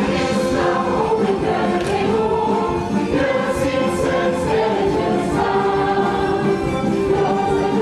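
A stage ensemble singing together in chorus over musical accompaniment, with long held notes.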